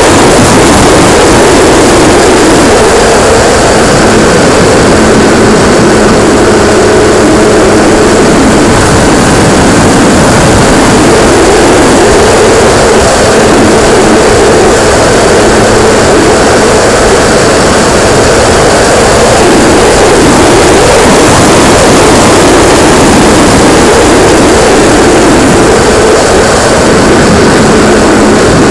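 Motor and propeller of a radio-controlled P-51D Mustang model, heard very loud and overdriven from a camera mounted on the plane, with air rushing past. The pitch wavers slightly but the sound stays steady throughout.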